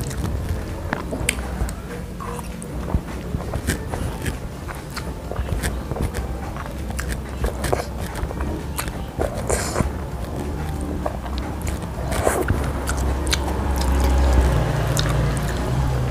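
Close-miked eating sounds of someone chewing and slurping spicy chicken noodles, with many short sharp clicks. A longer hissing slurp comes about halfway through.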